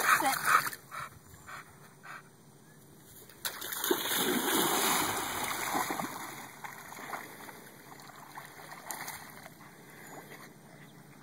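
A Staffordshire terrier-type dog splashing through shallow lake water and swimming out. The heaviest splashing comes about four seconds in as it plunges in, then it drops to quieter paddling and lapping water.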